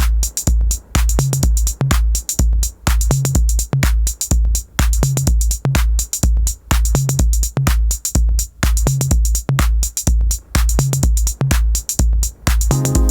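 Electronic beat from a drum machine: a deep kick about twice a second with crisp hi-hat and clap hits between. Near the end a sustained synth chord comes in over the beat.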